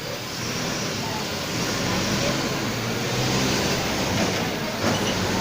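Mercedes-Benz OF 1721 BlueTec 5 bus's four-cylinder diesel engine pulling under load, building in loudness over the first two seconds, with the loud growl of its driveshaft (cardan).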